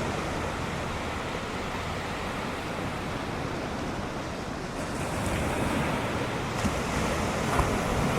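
Ocean surf: a steady wash of breaking waves, growing a little louder about five seconds in, with wind rumbling on the microphone.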